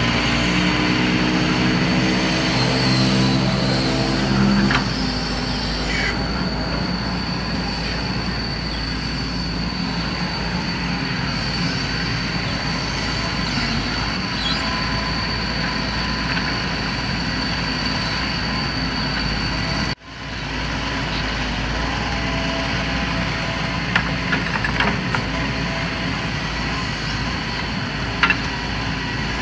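Heavy diesel construction machinery, an excavator at work, running steadily with an engine hum and a steady high whine. The sound drops out for an instant about twenty seconds in, and a few short knocks come near the end.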